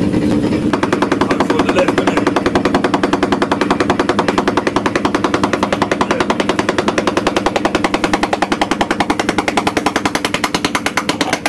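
Pneumatic moling machine (soil-piercing mole) hammering through the ground in rapid, evenly spaced blows, starting about a second in, over a steady engine hum.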